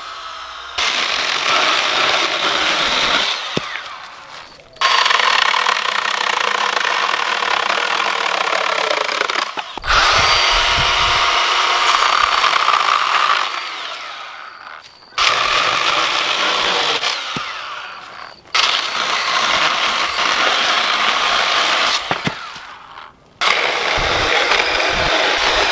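Milwaukee M12 FUEL Hatchet 6-inch cordless pruning saw running and cutting through wood: first a branch, then a 2x4 board. The sound comes in about six runs of a few seconds each, each starting abruptly and holding steady while the chain cuts.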